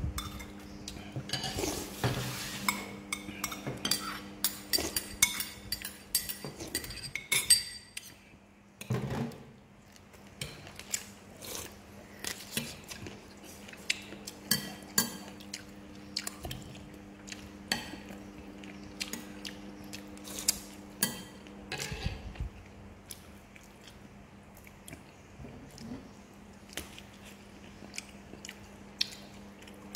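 Metal spoons clinking and scraping against china bowls and plates, in scattered irregular taps, over a low steady hum.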